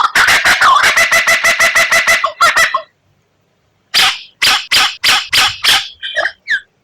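White-rumped shama song: a rapid rattling run of repeated harsh notes, about seven a second, breaking off for about a second of silence, then another burst of quick notes.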